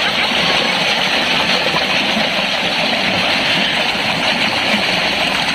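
Shallow rocky stream rushing and splashing over boulders close to the microphone, a steady, even rush of water.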